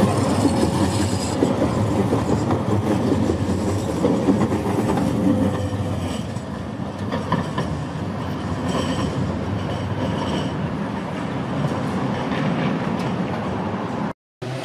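Light rail tram passing close, its motor whine dropping in pitch as it goes by and its wheels clicking over the rail joints. The sound then falls back to a quieter steady rumble of the tram running in the distance.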